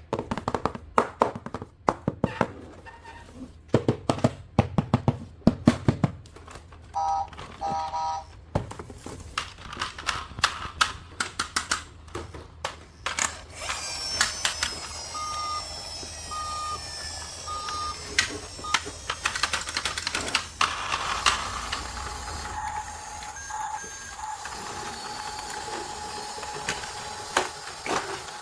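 Rapid, irregular clicking and clattering of plastic toys and packaging being handled, then a battery-powered toy's electronic sounds with three short beeps about halfway through.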